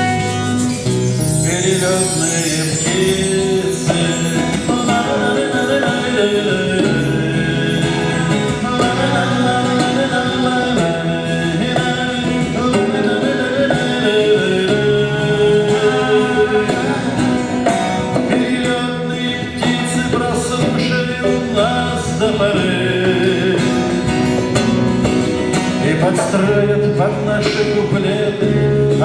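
A man singing a song to guitar accompaniment.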